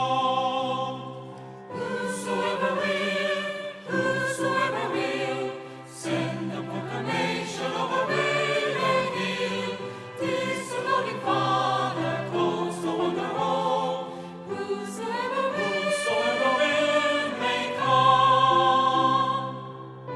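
Choir singing a hymn with sustained notes over steady low accompaniment, in phrases of a few seconds each, the last phrase the loudest.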